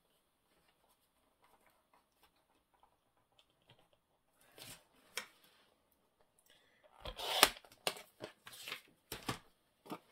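Paper being handled and trimmed at a craft table: a few short clicks and rustles after a quiet start, with a louder rustling scrape about seven seconds in.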